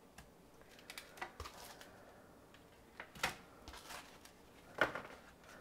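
Faint, scattered crinkles and clicks of a thin disposable aluminium foil pan being handled as raw sausages are pressed into it one by one.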